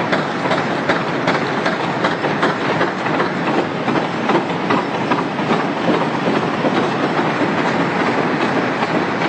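Mechanical power presses punching sheet metal, a continuous rapid, rhythmic clatter of press strokes over steady machine noise.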